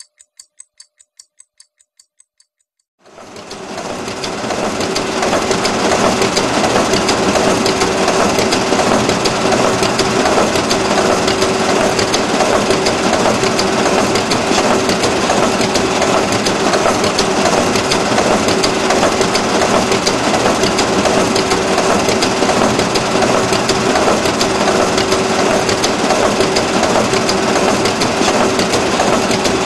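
After a few faint ticks, a photocopier starts running about three seconds in and keeps going with a steady mechanical clatter over a constant hum.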